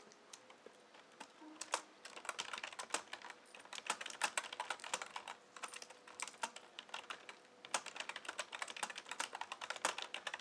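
Typing on a computer keyboard: quick runs of key clicks with brief pauses.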